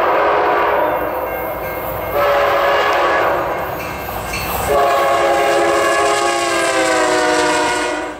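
Diesel locomotive's multi-note air horn sounding three long blasts, the last one sagging slightly in pitch.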